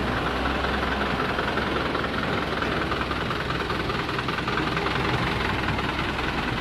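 Heavy diesel machinery engine running steadily, a constant low rumble with no change in speed.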